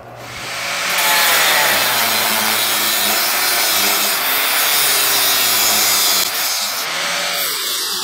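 Angle grinder with a cut-off disc spinning up over the first second and then cutting steadily through a steel tube, easing slightly near the end.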